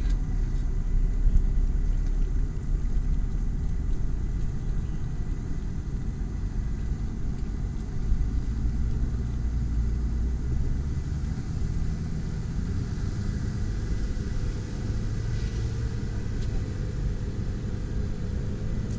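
Jeep Wrangler JL Rubicon engine running steadily with a low rumble, its pitch shifting slightly about eleven seconds in.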